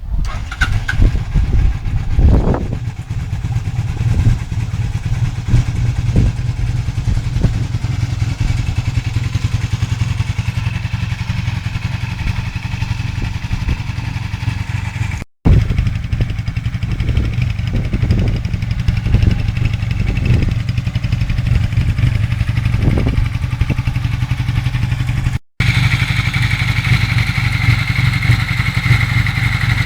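Honda CB 450 TR's air-cooled parallel-twin engine idling, with a few short throttle blips, on carburettors that are not yet well synchronized. It drops out abruptly twice, and after the second break it runs steadier with a brighter tone.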